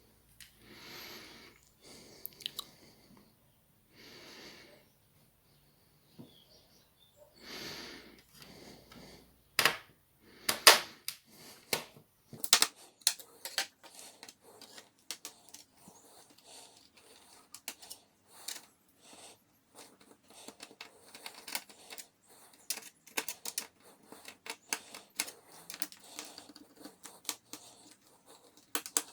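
Small tools and parts being handled inside a laptop during disassembly: soft rubbing and scraping at first, then, from about ten seconds in, many sharp irregular clicks and taps of plastic and metal.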